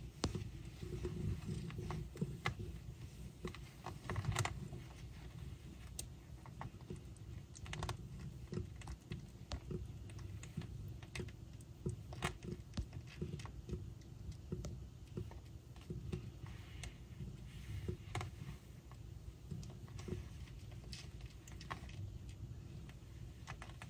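Newborn kittens suckling and jostling at their mother's belly: irregular soft clicks and smacks from nursing mouths and shifting fur, over a low rumble.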